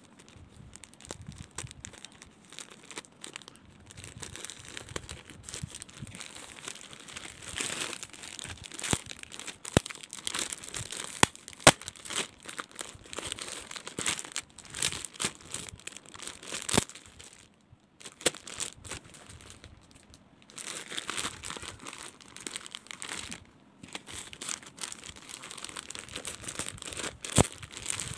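Thin plastic crinkling and crackling with sharp snaps, as a poly mailer bag is cut and torn open with scissors and a garment in a clear plastic sleeve is pulled out and handled. There are two short pauses in the second half.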